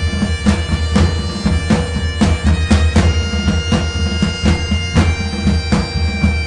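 Background music: a steady drum beat of about two beats a second under held, droning tones.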